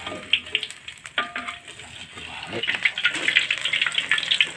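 Battered tempeh frying in hot oil in a wok, crackling and sizzling, with knocks of a metal spatula against the wok near the start and about a second in. The sizzling grows louder about two and a half seconds in as a fresh batch of tempeh cooks in the oil.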